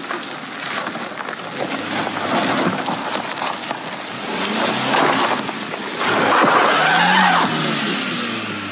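Hyundai Grand i10 hatchback's engine revving under load as it climbs a rocky dirt track, tyres crunching and scrabbling on loose stones. The engine note rises to its loudest about six seconds in, then falls away.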